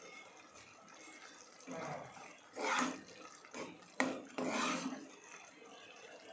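A spatula stirring and scraping thick curry in a saucepan, in several short strokes, with a sharp click from the utensil hitting the pot about four seconds in.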